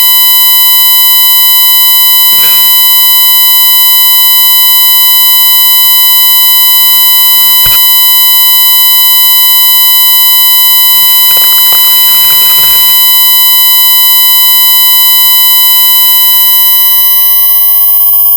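Synthesized tinnitus-relief tone track: many steady electronic pure tones, from mid-pitched to very high, sounding together without any change in pitch or loudness.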